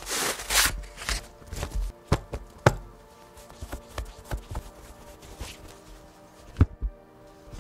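Rustle of a kraft-paper band being slid off a stack of folded cloth handkerchiefs, followed by scattered taps and knocks as things are set down on the table and the cloth is handled. Soft background music plays under it.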